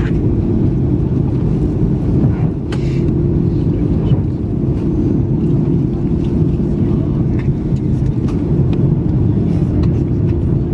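Cabin noise of an Airbus A330-200 on the ground with its engines running: a steady low rumble with a constant hum, and a few light clicks.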